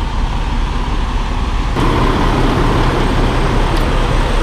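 Semi-truck diesel engine idling, a steady low rumble that grows louder and fuller about two seconds in.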